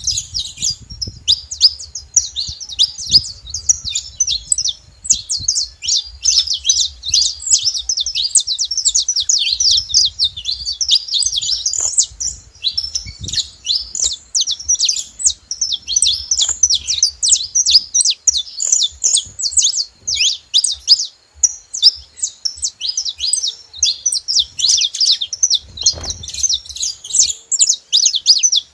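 Several saffron finches chirping together in a dense, nonstop stream of short, high notes.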